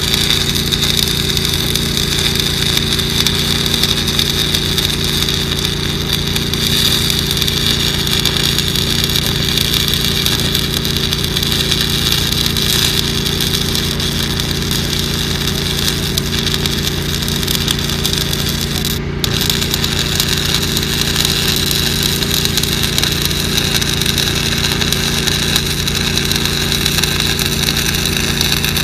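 Welding arc crackling and hissing steadily on pipe over the steady drone of an engine, the arc breaking off for a split second about two-thirds of the way through.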